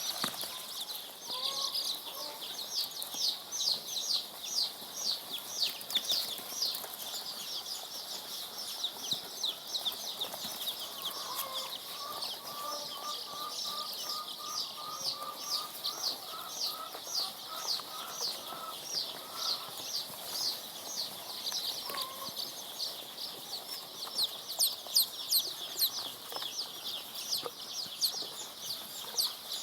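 A brood of three-day-old layer chicks peeping continuously, many high-pitched falling cheeps overlapping. A lower run of quick chirps joins in briefly about twelve seconds in.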